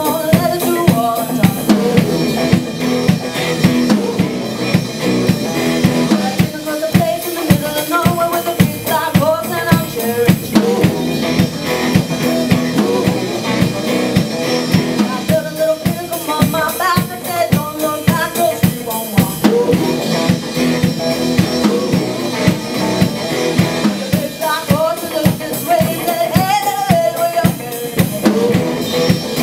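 A live band plays a song: a drum kit keeps a steady beat under electric and acoustic guitars and bass, and a woman sings the lead melody in phrases.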